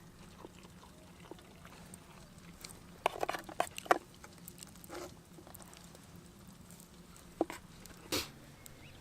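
Scattered light clinks and knocks of camp cookware being handled while a coffee is made, a cluster of them about three to four seconds in and a few single ones later, over a faint steady low hum.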